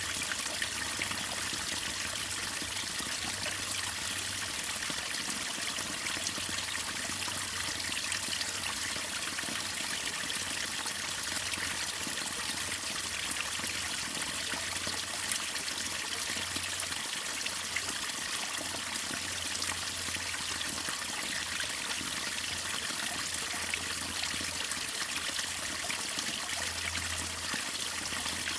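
Waterfall: a steady, unbroken rush of falling and splashing water, bright and hissy.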